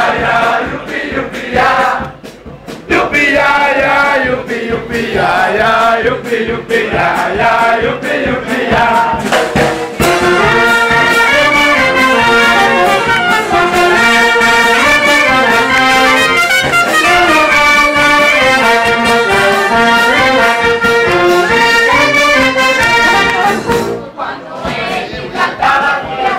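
Brass band playing, with trumpets and trombones. The sound is patchier for the first ten seconds, then full and steady, and drops briefly near the end.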